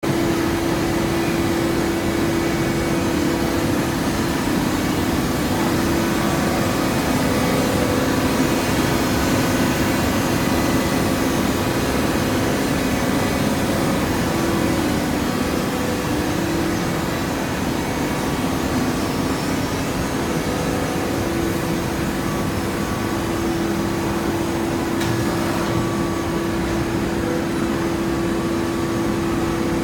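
Hydraulic baler's power unit running steadily: a constant machine hum with a steady tone over even mechanical noise.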